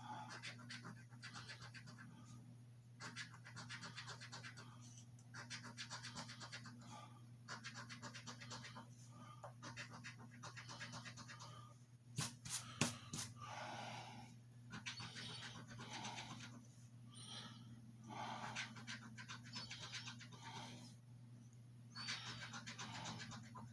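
A coin scratching the coating off a scratch-off lottery ticket in repeated short strokes with brief pauses. A few sharp clicks about twelve seconds in, over a low steady hum.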